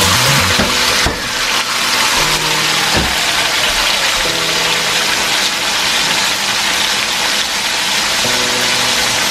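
Marinated beef steaks frying in oil in a stainless steel skillet: a steady, loud sizzle, with two sharp clicks about one and three seconds in. Background music plays underneath.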